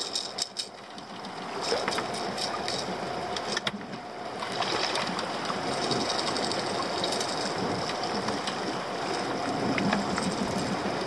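Small boat's outboard motor running steadily, with water washing against the hull, and a few sharp clicks from handling the hooked mackerel.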